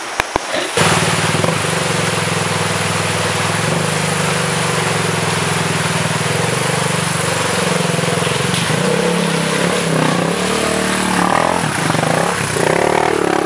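Dirt bike engine starting in suddenly about a second in and running steadily, then revving up and down over the last few seconds, louder as the bike comes close.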